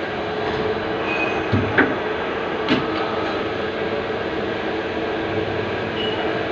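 CNC turning lathe running, a steady machine hum with a constant tone, broken by a few short knocks about one and a half to three seconds in.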